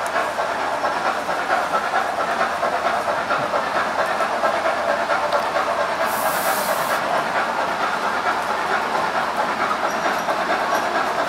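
Gauge 1 model freight train hauled by a steam locomotive rolling steadily along the track, its wheels rattling over the rail. A brief burst of hiss about six seconds in.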